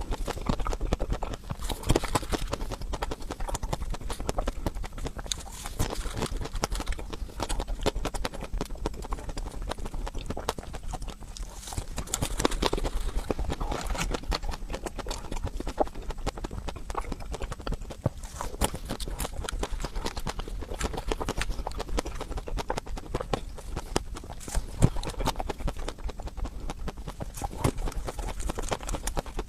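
Close-up crunching and chewing of a crunchy ice cream treat: a dense, irregular run of sharp crackling bites and chews.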